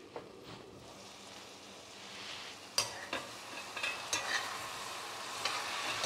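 Chicken wings sizzling as they brown in a cast-iron pan in their own juices, no liquid added, stirred with a metal spatula that clicks and scrapes against the pan. The clicks and the sizzle start about halfway through.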